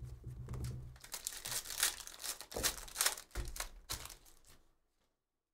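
A Panini Donruss basketball card pack's wrapper being pulled apart and crumpled in the hand: a run of crinkling and crackling with a few sharper crackles, stopping near the end.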